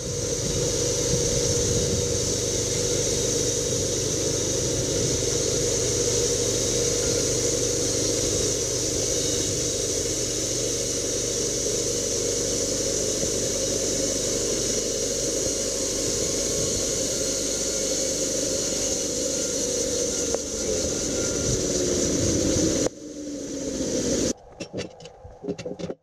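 Homemade band sawmill running, its blade sawing through a spruce beam with a steady mechanical whir from the spinning band wheels. Near the end the whir falls in pitch, then gives way to a quieter stretch with a few short knocks.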